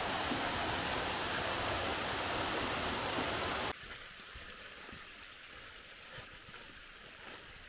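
Steady rushing of a waterfall and water running along a levada channel. It cuts off abruptly a little under four seconds in, leaving a much quieter background with a few faint ticks.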